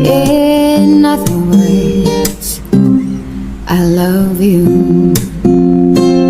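Acoustic guitar music, strummed, with held chords changing every second or so.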